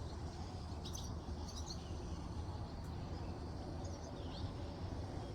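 A few faint, short bird chirps over a steady low outdoor rumble.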